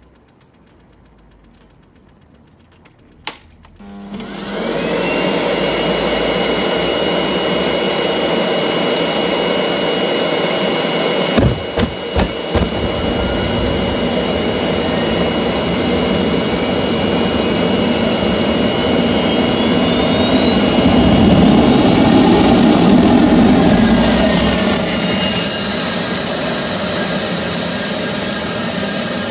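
Electric leaf blower switched on about four seconds in, blowing into a homemade gas turbine built from a Holset WH2D turbocharger to spin it up. After a few sharp clicks, the turbo's whine rises steadily in pitch as the turbine lights and spools up, settling into a steady high whistle near the end.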